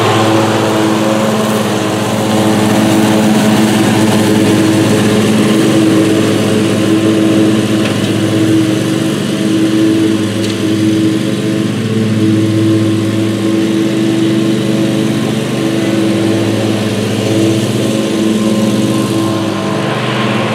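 Great Dane Super Surfer stand-on commercial mower's engine running steadily under load while mowing.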